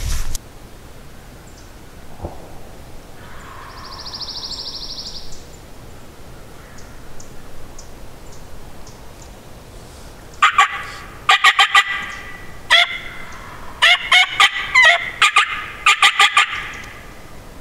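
Wild turkey gobblers gobbling: several loud, rattling gobbles in quick succession through the second half. A fainter high call comes about four seconds in.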